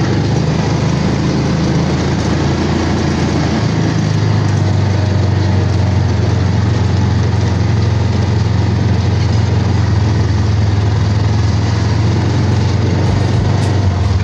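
A vehicle's engine running with road noise at a steady speed while it is driven.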